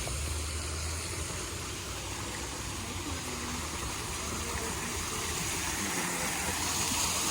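Waterfall rushing with a steady, even noise and a low rumble underneath.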